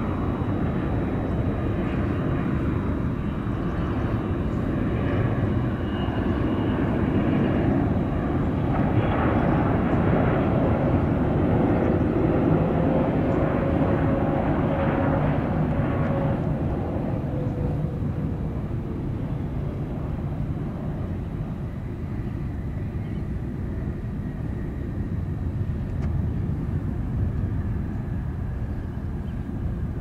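Jet engines of a landing Boeing 777, a steady rumble with a faint whine, growing louder through the final approach and touchdown about halfway through, then easing off as the airliner rolls out.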